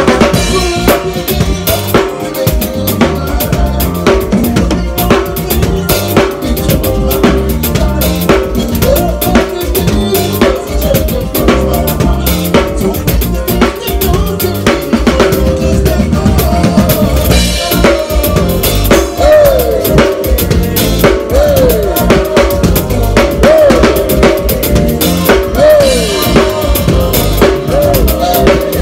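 A drum kit played live close up, kick, snare and rimshots driving a steady beat, with the rest of the band playing along. Sliding melody notes come in over the beat in the second half.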